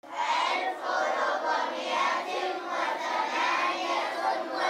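Many children's voices at once, a group of kids chattering and calling out together without a break.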